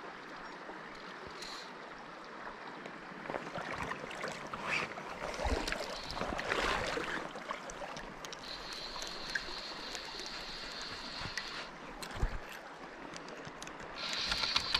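River current flowing steadily around a wading angler, with handling knocks and rustling in the middle. Past the middle a thin, steady high buzz runs for about three seconds, and it comes back near the end.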